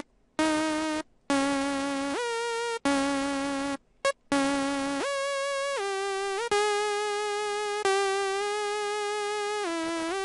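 Single-oscillator synth lead patch in Native Instruments Massive, with no effects, played as a melody: several short separate notes, then longer held notes that step between pitches, with a brief dip in pitch near the end.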